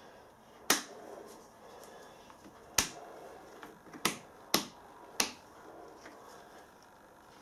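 Five sharp clicks, irregularly spaced, as a flexible filler spreader scrapes and flicks against the edges of a metal water pump end cap while car body filler is pressed into its holes.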